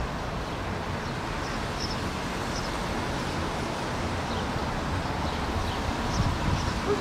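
Steady outdoor city background noise: a constant hiss with a low, fluctuating rumble of distant traffic and wind, and a few faint, short high chirps.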